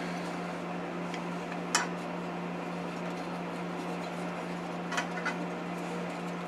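Steady low hum in a woodshop after the scroll saw has stopped, with a few faint light clicks and taps, about two seconds in and twice near five seconds.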